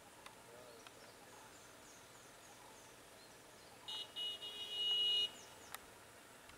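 Quiet outdoor ambience with a few faint high chirps. About four seconds in, a loud, high-pitched steady tone sounds for about a second and a half, then stops abruptly.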